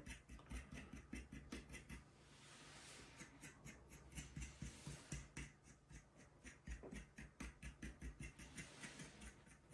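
Fork whisking a raw egg in a well of flour on a wooden counter: faint, quick ticks and light scraping of the tines against the board.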